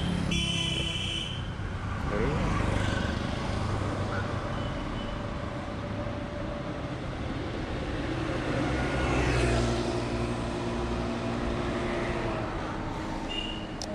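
Street traffic going past: cars on the road with a steady low rumble, and one vehicle's engine swelling and fading about nine to ten seconds in.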